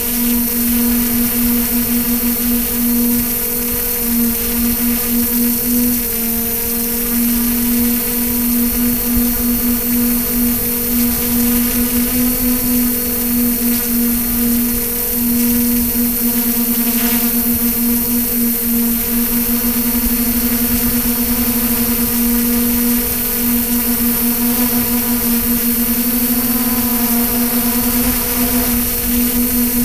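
Xugong multirotor's electric motors and propellers heard from its own on-board camera: a steady buzzing hum with one strong pitch that wavers slightly, over a constant hiss of rushing air.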